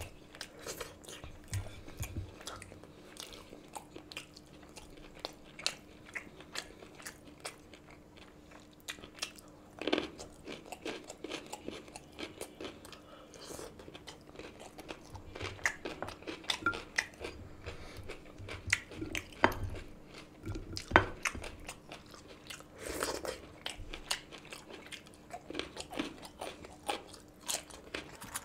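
Close-miked chewing and biting of a man eating rice, curry and salad by hand, with irregular crunches and clicks, and fingers tapping on the plate.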